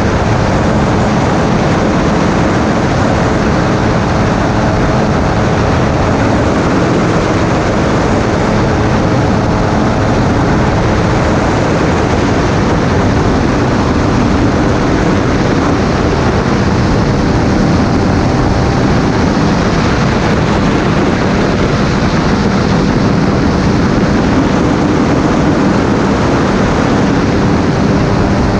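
Flexwing weight-shift microlight's engine and propeller running steadily at constant power, with a constant rushing noise over it.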